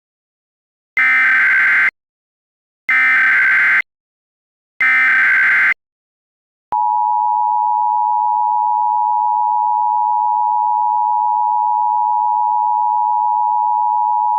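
Emergency Alert System tones: three one-second bursts of SAME digital header data, then, about seven seconds in, the steady two-tone EAS attention signal (853 and 960 Hz) begins and holds.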